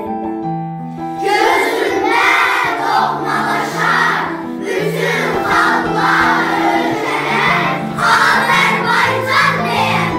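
A roomful of children's voices shouting together in unison, starting about a second in, over instrumental background music with steady held notes.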